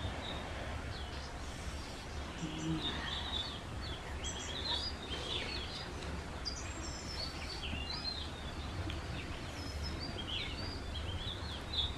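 Small birds chirping in the background: many short, quick chirps scattered throughout. A steady low hum runs underneath.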